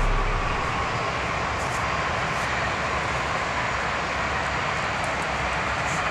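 Background music fades out at the start, leaving a steady rushing outdoor background noise.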